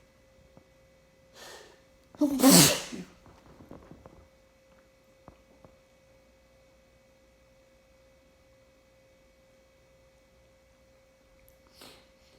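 A person sneezing: a short in-breath, then one loud sneeze about two seconds in, followed by a few faint breaths. Another soft in-breath comes near the end.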